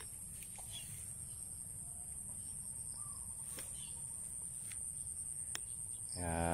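Rural outdoor ambience: a steady high-pitched insect drone with a low rumble of wind or phone handling underneath and a few faint ticks. Near the end a man's voice briefly starts.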